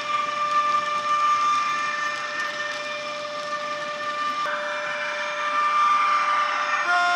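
Digital sound decoder of a model BR 185 electric locomotive playing through the model's small speaker. It gives a steady, multi-tone electric whine of the locomotive's traction equipment while it is under way. The tones step in pitch about four and a half seconds in, and a new set of tones comes in near the end.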